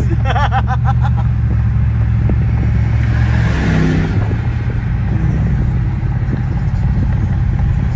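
Car engine running at a steady speed while driving, heard from inside the cabin as a constant low drone. A rush of noise swells and fades about halfway through.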